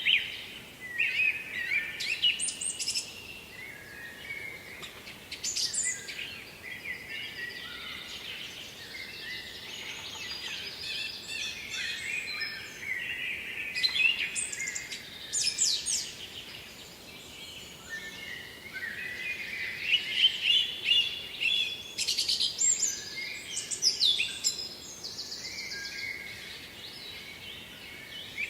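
Songbirds singing: a string of varied chirping phrases and quick trills, one after another, over a faint steady background hiss.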